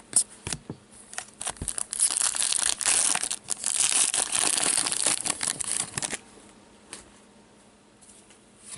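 A hockey card pack's plastic wrapper being torn open and crinkled by hand. A few sharp clicks come first, then about four seconds of loud crinkling that stops abruptly about six seconds in.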